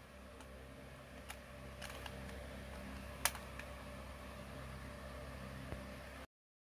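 Faint room tone with a steady low hum, broken by a few light clicks, the clearest about three seconds in, as a plastic spinning-top launcher is handled and set down on a tile floor. The sound cuts off abruptly near the end.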